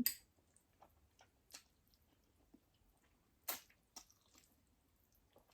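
Faint wet mouth sounds of someone chewing ramen noodles, soft scattered clicks and squishes, with one louder short sound about three and a half seconds in.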